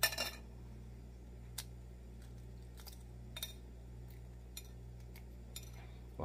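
Eggshell crackling as a boiled egg is peeled by hand: a short crackle right at the start, then a few faint clicks of shell coming away. A low steady hum runs underneath.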